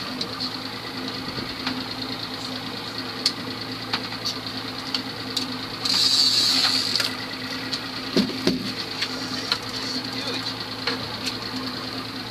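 Outboard motor running steadily at idle, with a fishing reel being cranked in, its gears making a fast fine whirring. A louder hiss comes in briefly about six seconds in.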